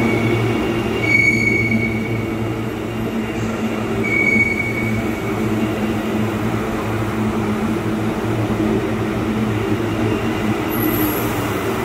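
Suburban passenger train running steadily, with a continuous low hum and rumble. Wheels squeal briefly and high twice, about a second in and again about four seconds in.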